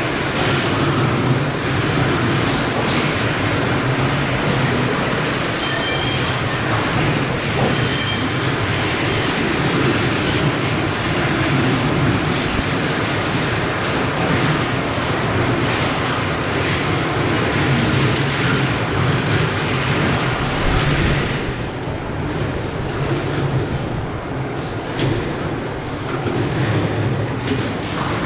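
Factory machinery running steadily with a continuous low hum and a dense mechanical clatter, with a few brief high pings. The sound thins slightly about three-quarters of the way through.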